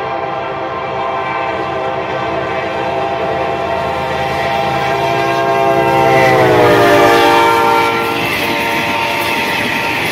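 Passenger diesel locomotive's multi-tone air horn sounding one long continuous blast as the train approaches and passes at speed, its pitch dropping as the locomotive goes by about six to seven seconds in, when it is loudest. The horn stops about eight seconds in, leaving the rumble and wheel clatter of the coaches rushing past.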